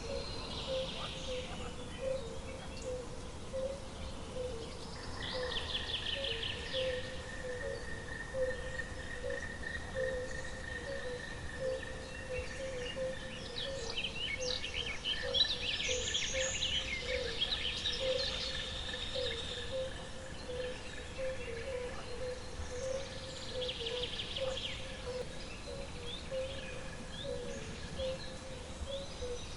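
Wild nature ambience: birds chirping in repeated bursts every few seconds over steady trilling and a constant pulsing call in the background.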